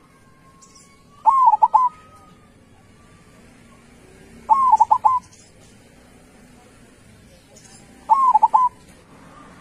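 Zebra dove (perkutut) cooing: three short phrases about three and a half seconds apart, each a quick run of four or five staccato notes.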